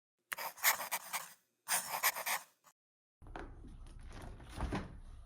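A small dog panting in two short bouts, then a room's quiet background with a few light clicks and taps.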